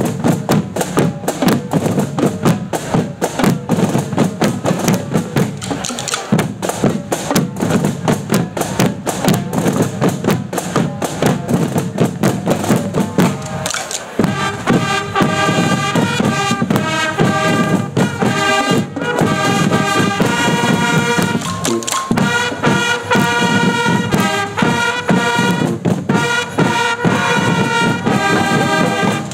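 A fanfare band playing: drums alone at first, then about halfway through the horns come in with a melody over the drumming.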